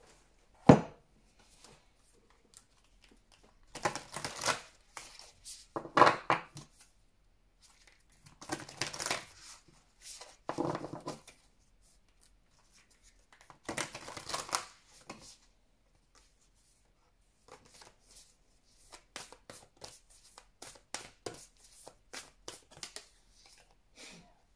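A deck of oracle cards being shuffled by hand: a sharp tap about a second in, then several rustling bursts of shuffling, then a run of quick light clicks of cards near the end.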